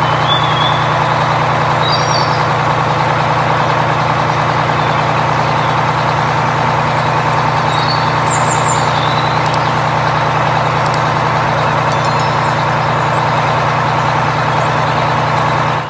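Heavy truck engine running steadily, with a few faint bird chirps.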